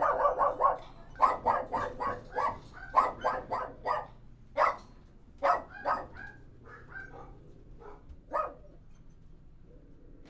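A dog barking: quick runs of barks for the first four seconds, then single barks spaced out, growing fainter and stopping about eight and a half seconds in.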